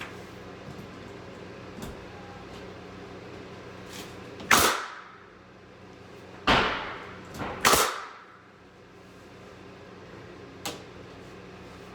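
Pneumatic nail gun firing three times, each a sharp crack with a short decaying tail: two about two seconds apart, the third a second later.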